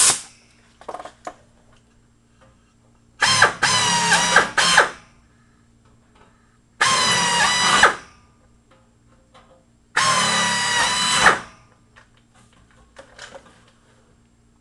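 A right-angle pneumatic air drill runs three times, whining as it opens number 30 pilot holes in aluminium sheet out to number 10 size. The first run is broken into several short blips and the other two each last about a second. A sharp click comes right at the start.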